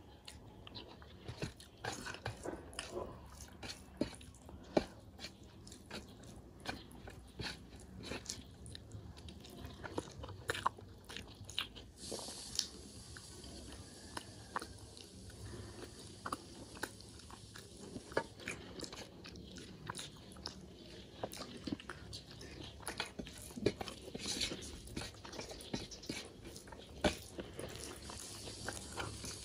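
Close-up chewing and mouth sounds of a person eating rice, greens and chicken curry by hand: many short, scattered clicks and smacks with quiet between.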